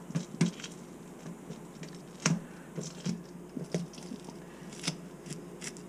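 A large spoon scraping scales off a panfish on a wooden cutting board: irregular short scrapes and clicks, the sharpest a little over two seconds in.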